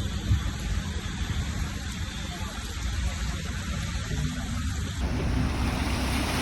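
Steady rushing noise of storm rain and floodwater over a low rumble. About five seconds in it changes abruptly to a brighter, louder hiss.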